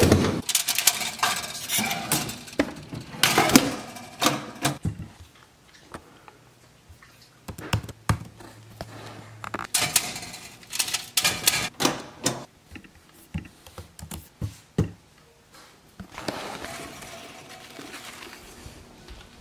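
Kitchen handling noises: a string of sharp clicks, knocks and clatter as a fridge is opened and frozen waffles are laid on a foil-lined toaster-oven tray. Near the end there is a softer rustle of paper towel.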